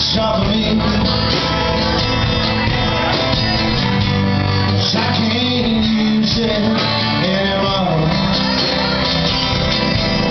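Live band playing with acoustic and electric guitars and a singing voice, loud and continuous.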